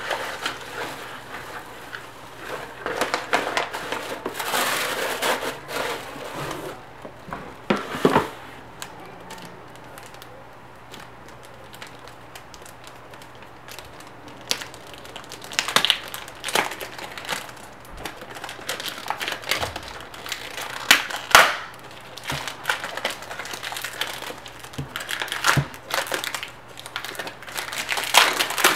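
Hands rummaging through crinkle-cut shredded paper filler in a gift box, a dense rustling and crinkling, then a plastic bag and cardboard boxes being handled, with scattered taps and knocks as they are picked up and set down on the desk. The rustling fills the first several seconds. A sharp knock comes about eight seconds in, and the loudest knock about two-thirds of the way through.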